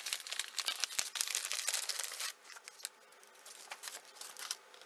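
Crinkling and crackling of thin sheet material being handled: dense fine crackles for about two seconds, then a few sparse crackles later.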